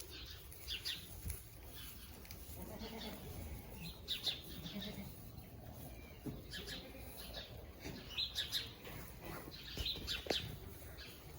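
Small birds chirping on and off, with occasional faint bleats from Boer goats.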